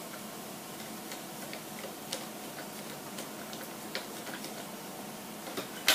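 Light, irregular clicks and ticks of small screws, parts and tools being handled during model-truck assembly, over a steady low hiss, with one sharper, louder click near the end.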